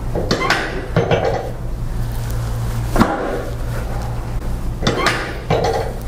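Sharp cracks and knocks from chiropractic thrusts on a patient lying face down, a few in quick succession about a second in, then single ones near three and five seconds. Short breathy sounds follow some of them, over a steady low hum.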